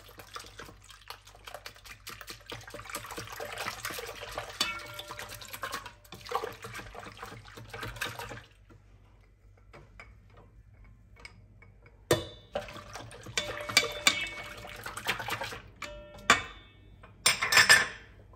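A wire balloon whisk beating a thin liquid mixture in a stainless steel bowl by hand: liquid sloshing with the wires clicking against the steel for about eight seconds. After a few quiet seconds come scattered clinks and taps of the whisk on the bowl, and a louder clank near the end.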